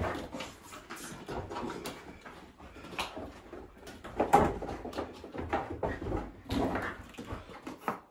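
Two dogs moving about and nosing among scattered plastic play balls, with irregular light knocks and short noisy sniffs.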